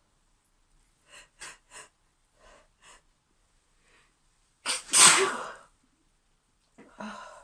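A woman's sneeze: several short, catching breaths in the first three seconds build up to one loud sneeze about five seconds in, followed by another short breath near the end.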